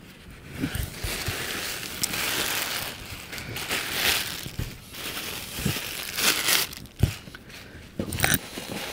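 Plastic bubble-wrap packing crinkling and rustling in swells as it is pulled out of a cardboard box, with a few dull knocks, the sharpest about seven seconds in.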